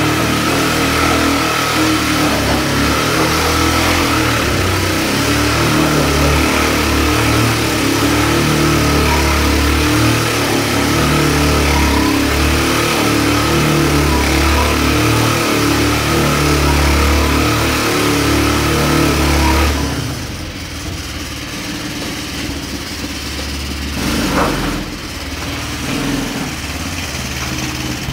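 A 200cc ATV engine running at high revs while the quad is drifted. About twenty seconds in it drops back to lower, quieter running, with a brief sharp sound a few seconds later.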